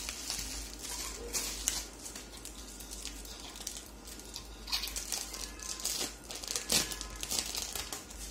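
Clear plastic wrapping crinkling and rustling as it is pulled off a white plastic monitor stand by hand, with scattered sharper crackles.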